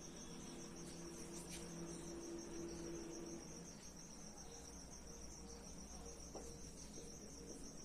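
A cricket trilling steadily, a continuous high, finely pulsing chirp, with a few faint scratches of a marker on a whiteboard.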